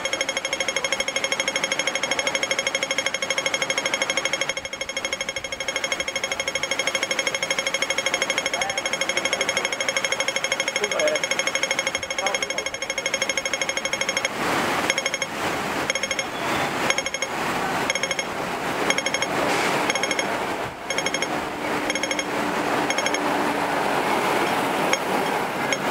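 Hong Kong pedestrian crossing signal's audible tick beeping rapidly, then a little past halfway slowing to about two ticks a second: the change of crossing phase, fast ticking for the green man and slow ticking for don't cross. Street traffic noise grows louder in the second half.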